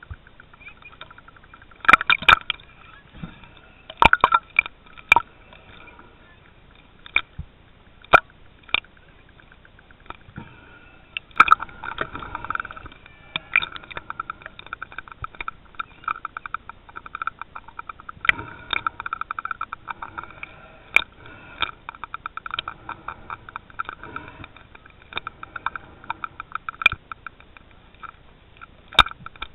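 Underwater sound: irregular sharp clicks and knocks over a fast buzzing rattle, heard through water.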